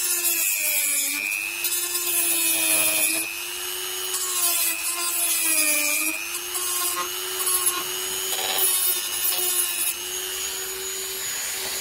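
Dremel rotary tool running at high speed with a steady whine, its disc grinding away plastic mounting tabs on the back of an STI winglet. The pitch sags briefly several times as the disc is pressed into the plastic, with a rasping scrape while it cuts.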